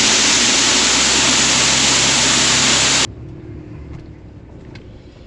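Loud steady rushing noise over a low vehicle hum that cuts off abruptly about three seconds in, leaving a much quieter low rumble with a few faint clicks.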